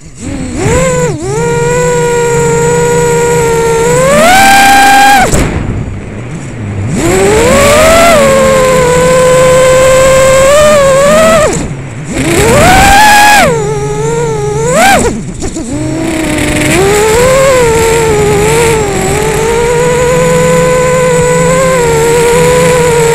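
FPV quadcopter on a 3S battery, its brushless motors and propellers whining through the onboard camera's microphone. The pitch rises and falls with throttle and drops away sharply for a moment about 5, 12 and 15 seconds in, then spins back up.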